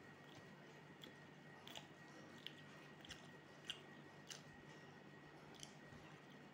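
Faint close-up chewing of a mouthful of rice and curry, with about eight small sharp clicks scattered through, over a faint steady hum.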